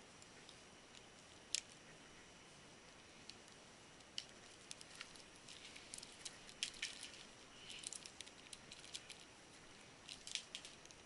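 Faint scattered clicks and rustles of hands handling cables and cable ties, with a few small snips and plastic ticks, denser in the middle and again near the end.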